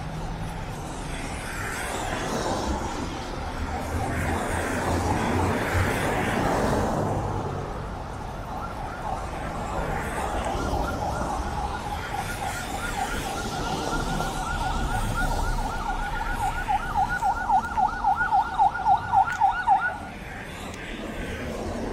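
Emergency vehicle siren on a yelp cycle, pulsing quickly and growing louder for about ten seconds before cutting off suddenly near the end. Before it, a vehicle passes in street traffic.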